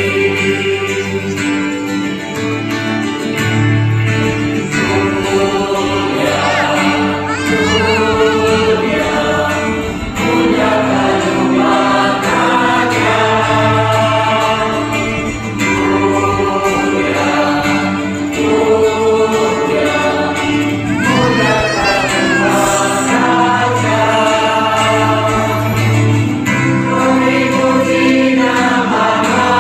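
Choir and congregation singing a hymn with instrumental accompaniment, the voices holding long notes over a steady bass line.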